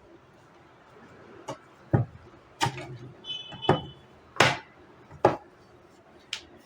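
A series of about six sharp knocks and clacks of hard objects, irregularly spaced, with a brief high chirp near the middle.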